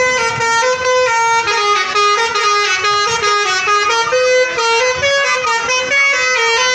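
Indonesian bus telolet horn playing a tune: several horn tones that step up and down in pitch in quick succession, without a break.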